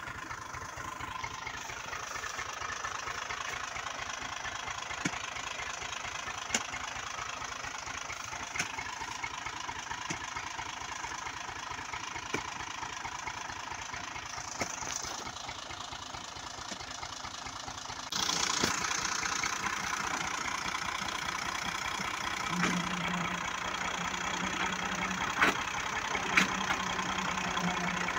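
Diesel farm tractor engine running steadily at low throttle as it pulls a trolley loaded with branches, with a clattering beat; it gets louder about two-thirds of the way in, and a few short sharp knocks stand out.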